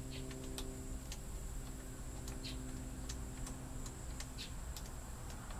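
Faint, irregular small metal clicks and taps as a screw is fumbled into place and started in a camper door lock, over a steady low hum.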